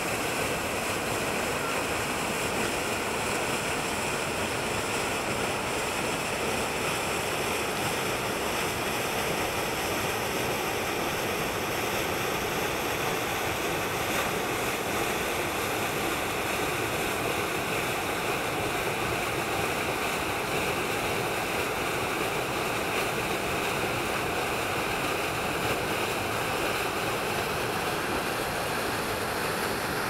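Small waterfall and the river rapids below it: water rushing over rock in a steady, unbroken wash.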